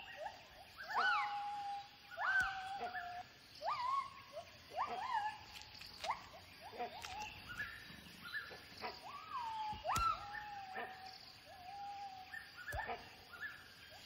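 A gibbon calling: a long run of whooping notes, each sweeping sharply up in pitch and dropping back, about one a second, with some held notes in between.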